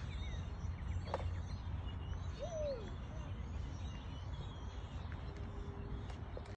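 Outdoor ambience: a few birds chirping now and then over a low steady rumble.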